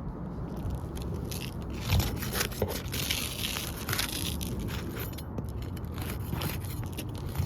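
Irregular gritty scraping and crunching, footsteps and scuffs on granular asphalt roof shingles, over a steady low rumble.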